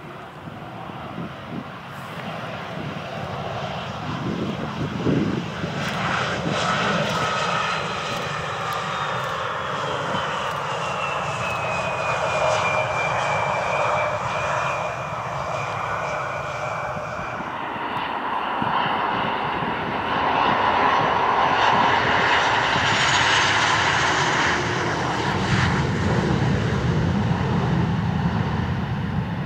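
Jet engines of a Bombardier CRJ regional jet on the runway: a steady rumble with a whine that drops in pitch as it passes. After a cut, the louder jet engines of a Boeing 737 on the runway.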